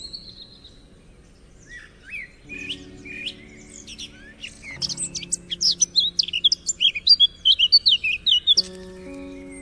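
Small birds chirping and tweeting: scattered calls at first, then a dense run of quick, high chirps from about five seconds in until near the end, the loudest part. Soft background music with held low notes plays underneath.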